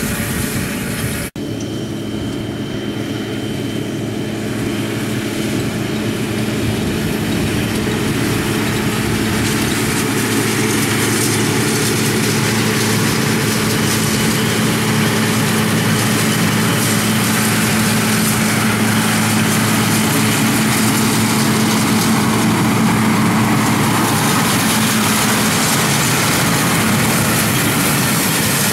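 Farm tractor engine running steadily while pulling a round baler through the hay, a constant mechanical drone. The sound cuts out for an instant about a second in.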